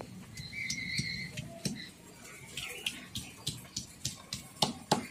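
Quiet outdoor background: a faint bird call with a held whistle-like note about a second in, then a run of soft, irregular clicks, about three a second.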